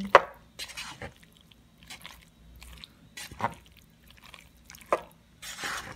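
Wooden spoon stirring mayonnaise-dressed macaroni salad in a black pot: irregular soft squishes and scrapes of the spoon through the pasta and against the pot, the sharpest about a split second in.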